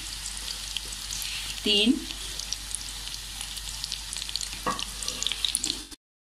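Chopped red onions frying in hot oil in a karahi: a steady sizzle with scattered crackles, stopping abruptly near the end.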